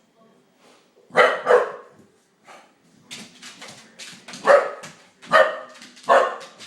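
A dog barking: two quick loud barks about a second in, a few softer barks, then three loud barks roughly a second apart near the end.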